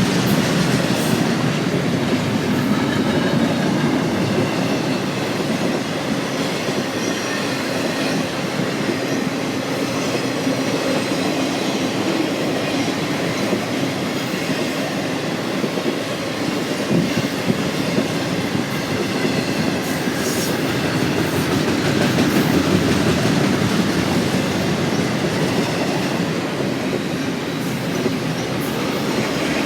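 BNSF intermodal freight train's cars rolling past: a steady rumble of steel wheels on rail with clickety-clack from the rail joints and a faint high wheel squeal.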